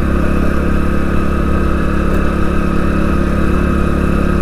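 Hero Splendor Plus motorcycle's 100cc single-cylinder four-stroke engine running at a steady pitch under load on an uphill climb, heard from on the moving bike.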